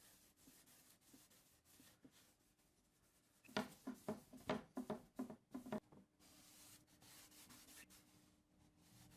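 Hand rubbing strokes on wood, like sanding by hand, faint at first. In the middle there is a run of about nine louder quick back-and-forth strokes, about four a second.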